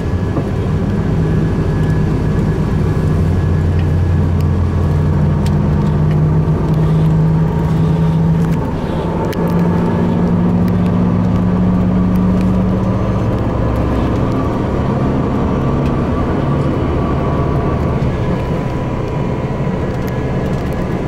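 Tour bus engine and road noise heard inside the moving bus, a steady low drone whose pitch shifts up and down a few times as the engine speed changes.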